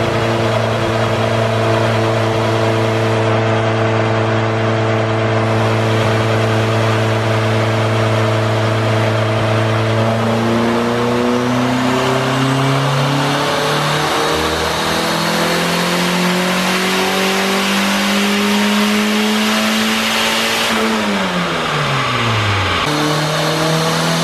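Turbocharged car engine running on a chassis dyno. It holds a steady speed for about ten seconds, then revs up steadily through a pull for about ten seconds. The throttle is then lifted and the revs fall quickly, picking up again near the end.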